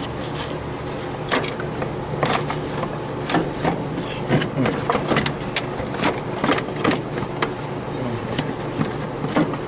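Metal clicks and clanks of hand tools and parts being worked on a car, irregular and frequent, over a steady low hum.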